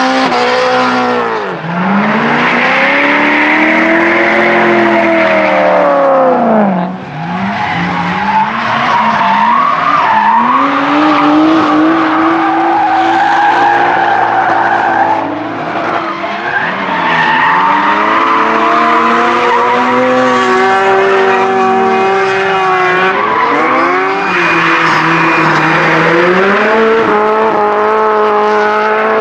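Drift cars, among them a Subaru Impreza and a BMW 3 Series, sliding under power: engines revving hard, pitch rising and falling over and over, over the hiss and squeal of spinning tyres. The sound drops briefly three times and picks up again with another car.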